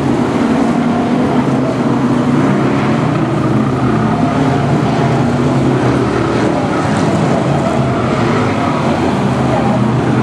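Several BriSCA F1 stock cars' V8 engines running together as the pack laps the oval, a loud steady engine drone with no single event standing out.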